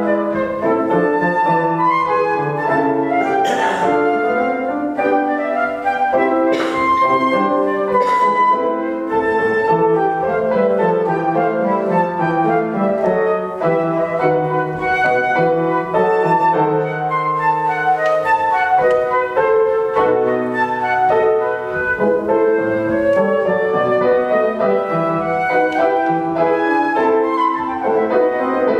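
Flute and grand piano playing classical chamber music together, with sustained flute melody lines over piano accompaniment.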